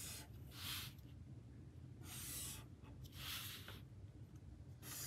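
A pen drawing straight lines along a ruler on paper: four faint scratchy strokes, each about half a second long.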